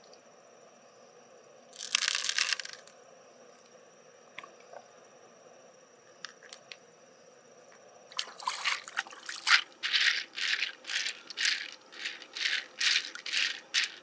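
Loose pearls rattling as they are shaken: one short rattle about two seconds in, a few faint clicks, then a quick run of rattles, two or three a second, through the second half.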